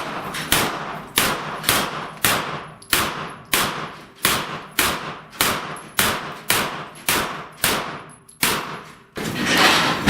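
A string of about fifteen evenly paced shots from a pistol-calibre firearm, about two a second, each with an echoing tail, as a shooter works through a course of steel plate targets. The shooting stops about nine seconds in and gives way to a loud spell of noise.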